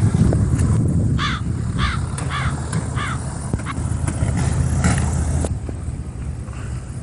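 Cartoon crow cawing four times in quick succession, a comedy sound effect added in editing, over a steady low rumble of wind on the microphone.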